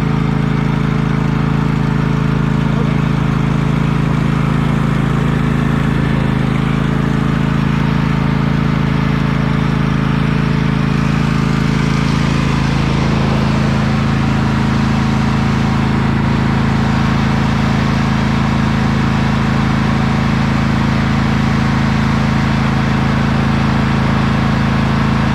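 Riding lawn mower engine running steadily; its note shifts slightly higher about halfway through.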